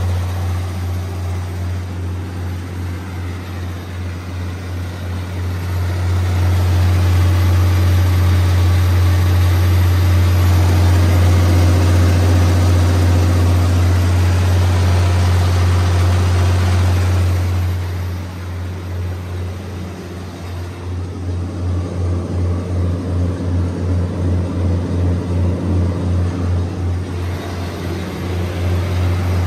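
Cummins 6CT8.3-G2 six-cylinder turbocharged diesel engine of a 125 kW generator set running steadily at its governed 1800 rpm with a deep, even drone. It grows louder and softer as the microphone moves around the open enclosure, with a rapid throb most plain toward the end.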